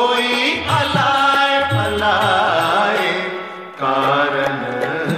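Devotional song: a voice singing a wavering melodic line over instrumental accompaniment and low drum strokes. The music dips briefly about three and a half seconds in, then comes back fuller.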